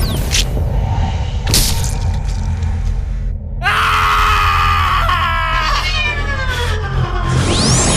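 A cat's long drawn-out yowl that slides slowly down in pitch, starting about halfway in, over a steady low drone.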